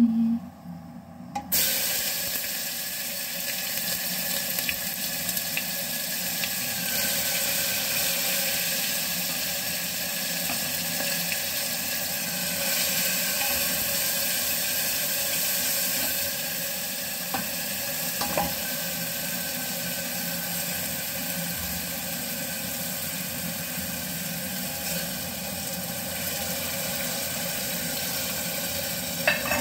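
Spiced masala for dal frying in hot oil in a pan, at the tempering stage: a steady sizzle that starts suddenly about a second and a half in and then holds even, with a few light clicks later on.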